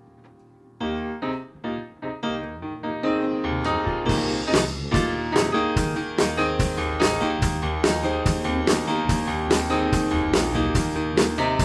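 Live church band playing a song's instrumental introduction: keyboard chords start a little under a second in, and about four seconds in the full band comes in with a steady beat.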